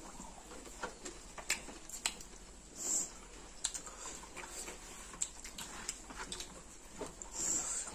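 Close-up eating sounds of two people eating rice and chicken curry with their hands: scattered wet chewing and lip-smacking clicks, with two brief louder smacking sounds, one about three seconds in and one near the end.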